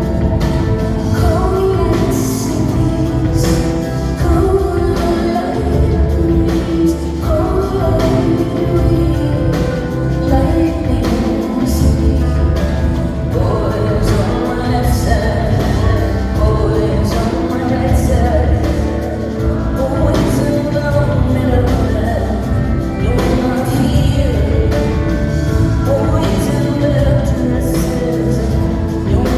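Live concert music: a woman singing over keyboards, a strong bass line and drums.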